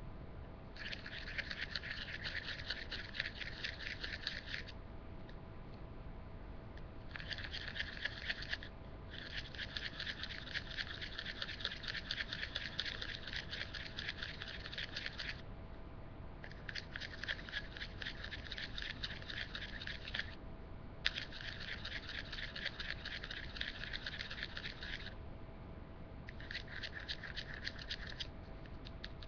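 Paint and water being stirred in a container, the utensil scraping the sides in rapid strokes, in about six bouts of several seconds with short pauses between them: mixing to break up the lumps of paint.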